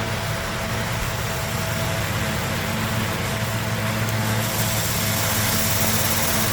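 Steady machine hum with hiss, holding a low tone and a fainter higher tone.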